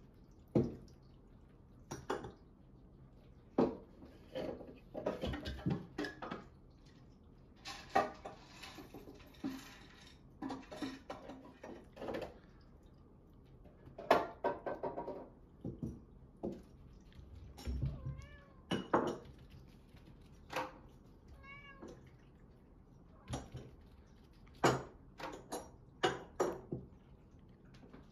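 Several Munchkin cats meowing again and again, short separate calls, a few of them drawn out with a wavering pitch, mixed with some sharp clicks. The cats are waiting to be fed.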